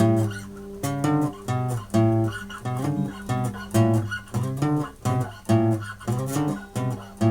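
Guitar played in short, choppy chords about twice a second, each one cut off or dying away before the next.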